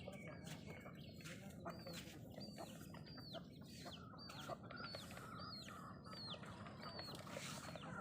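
Country chickens on a farm: a series of short, high, falling calls repeating about twice a second over scattered light clicks.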